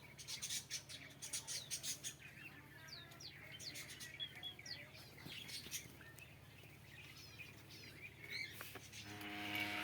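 Small birds chirping in many quick, high, short calls. Near the end a farm animal begins a long low call.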